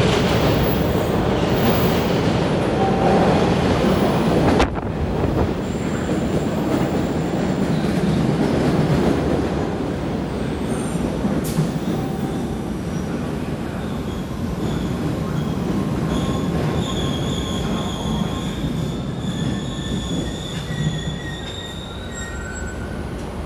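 MBTA Red Line subway train pulling into an underground station, with a steady rumble of the cars on the rails. High-pitched wheel squeal sets in after a few seconds and grows stronger in the second half as the train slows along the platform.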